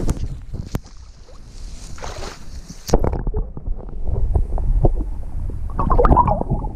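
Wind and handling rustle, then about three seconds in an action camera plunges under the lake surface: the sound turns muffled and low, full of sloshing and bubbling water, with a louder burst of splashing about six seconds in.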